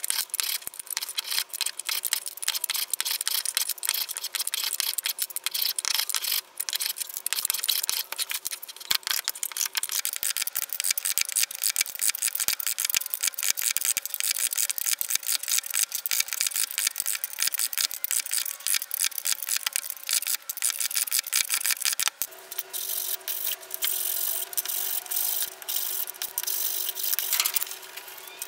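Small walnut puzzle blocks being chamfered by hand: rapid, repeated rasping strokes of wood against a hand tool. The texture of the strokes changes twice, about ten seconds in and again about two-thirds of the way through.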